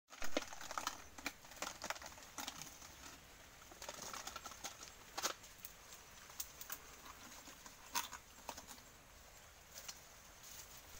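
Dry nipa palm fronds and stalks crackling and snapping as they are handled and pushed aside, in irregular sharp clicks that are busiest in the first five seconds and sparser after.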